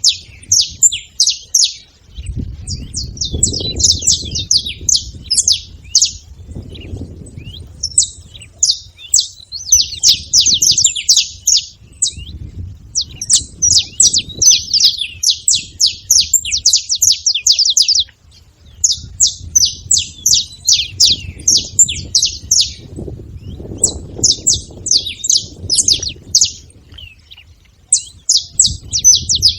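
Several saffron finches chirping and calling together in quick, rapid runs of high notes lasting a few seconds each, with short breaks between them, over a low background rumble.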